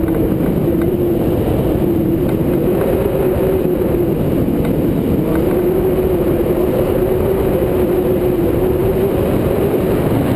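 Loud, steady wind rush from the airflow over a wing-mounted camera's microphone on a hang glider in flight, with a steady hum running through it.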